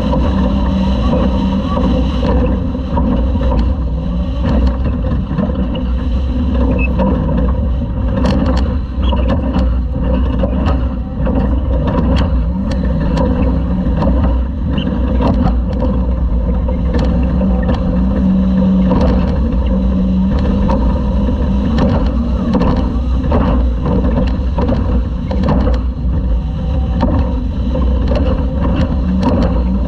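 Onboard sound of a Class 2000 Toyota off-road race truck at speed: the engine runs steadily under load over a heavy low rumble, with frequent short knocks and rattles throughout.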